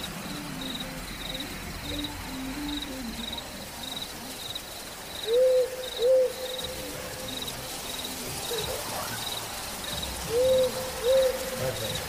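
An owl hooting in two pairs of short, arched hoots, one pair about five seconds in and another near ten seconds. Under them, crickets chirp steadily about twice a second.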